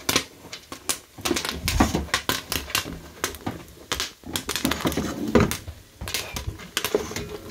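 Wooden spoon stirring sugar-coated popcorn in a stainless steel pot: irregular rustling and crunching of the popcorn, with quick clicks of the spoon against the pot.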